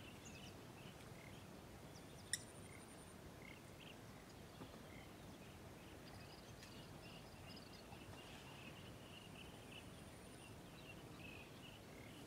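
Near silence: faint rural ambience with scattered soft bird chirps and a thin, high insect-like tone for a few seconds in the second half. A single sharp click comes a little over two seconds in.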